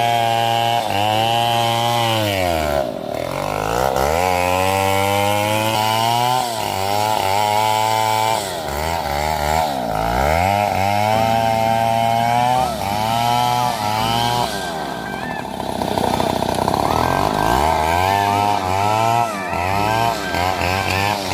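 Chainsaw running at high revs while cutting wood. Its pitch sags several times as the chain bites into the wood, then climbs back as the load comes off.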